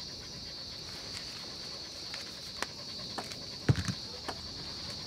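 Steady high-pitched insect chirring, like crickets, with a few scattered clicks and a sharper knock a little past halfway.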